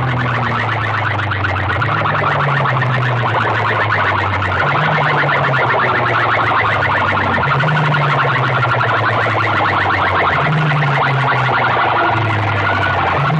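Loud, distorted music blasting from a tall stack of horn loudspeakers on a DJ sound rig. A low two-note bass figure repeats about every three seconds under a fast, harsh buzzing.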